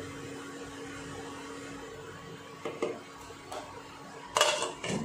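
Spatula stirring thin spinach puree in a non-stick kadai, then a few light clinks and a louder clatter of a glass lid set onto the pan near the end, over a steady low hum.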